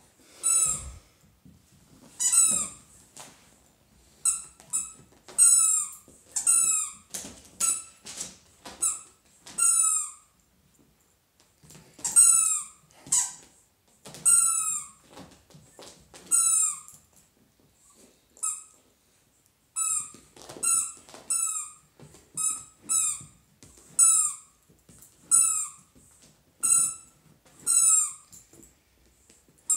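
Rubber squeaky bone toy squeaking over and over as a dog bites down on it, each squeak a short high note that falls in pitch, coming about one or two a second with a few short pauses.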